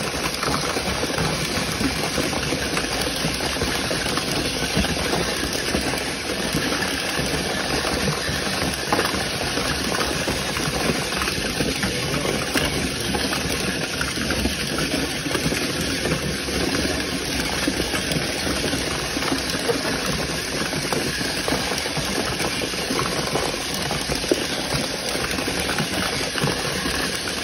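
A swarm of small battery-powered self-righting toy cars running together inside a cardboard box: a steady whir of many tiny motors and wheels on cardboard, with constant small rattles and knocks as the plastic cars bump into each other and the box walls.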